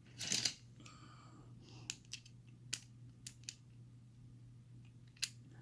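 Small metal tools being handled and tried against a padlock: a brief rustle near the start, then a few scattered sharp clicks and light taps.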